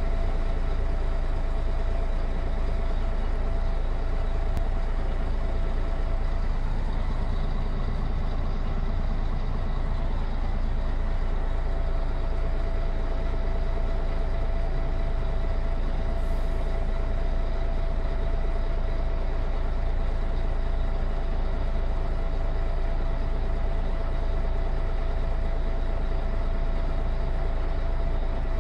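MAN NG313 articulated city bus standing with its doors open, its MAN D2866 LUH24 six-cylinder diesel idling steadily, heard from inside the bus. A steady whine runs over the engine note.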